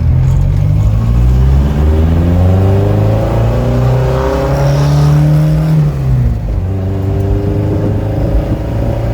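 Ford Anglia's swapped-in Crossflow four-cylinder engine pulling under way: the revs climb over the first few seconds and hold, drop sharply about six seconds in, then run steady.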